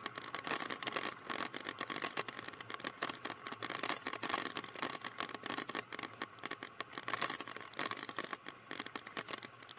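Cessna 152 slowing to a stop on the runway with the throttle closed to idle after a practice rejected takeoff, the cabin full of irregular rattling and clicking over a faint steady hum.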